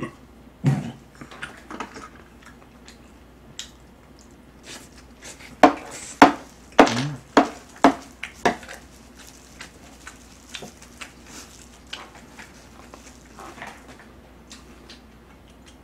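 Metal spoon clinking and scraping against a heavy black pan of fried rice: a quick run of about half a dozen sharp clinks in the middle, with fainter scattered clicks around it.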